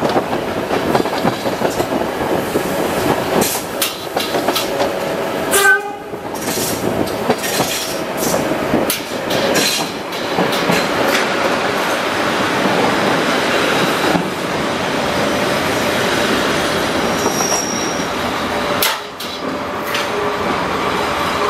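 BDZ Class 07 'Ludmilla' diesel locomotive's Kolomna V16 engine running as it hauls the train, with the coach wheels clattering over the track, heard at the open window of the coach right behind it. A brief loud rush comes about six seconds in.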